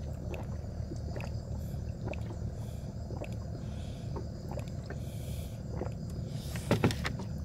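Steady low rumble with scattered light clicks and knocks, a few louder knocks near the end.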